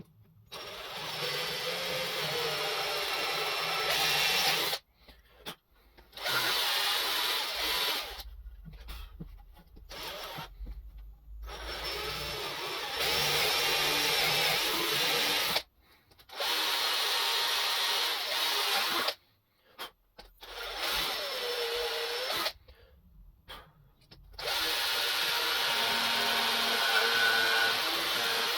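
Power drill running in about six bursts of a few seconds each, starting and stopping abruptly, its motor pitch sagging and recovering under load as it works the larch timber.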